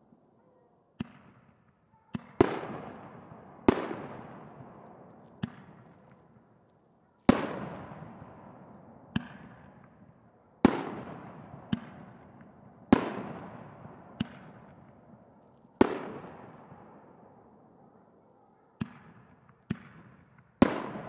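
Fireworks going off in a quick, irregular series: about fifteen sharp bangs, some much louder than others, each trailing off in a long echo.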